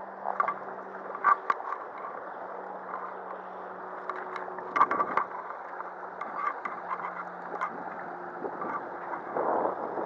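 Shallow stream running over a stony riffle, a steady rushing, with scattered sharp clicks and scrapes of footsteps and handling on the gravel bank.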